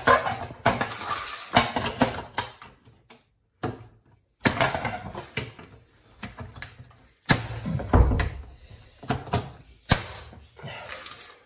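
A washing machine's bottom front base panel being fitted by hand: repeated clattering, scraping and clicks as it is pushed and snapped into place, with a heavier thump about eight seconds in.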